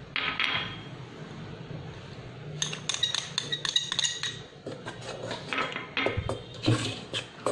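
Metal spoon clinking and scraping against small ceramic dishes and a stainless steel mixing bowl as ingredients are tipped into flour and stirred. The clinks come in clusters of quick sharp taps: a short one near the start, then two longer runs through the middle and toward the end.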